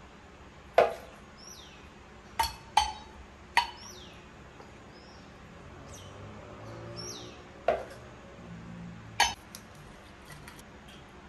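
A metal measuring cup clinking against the rim of a glass jar as soaked fruit is scooped out, six sharp clinks spread irregularly, two of them close together, with soft thuds of the fruit between.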